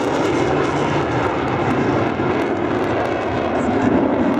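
Jet aircraft in flight: a steady rushing engine noise with no clear tone.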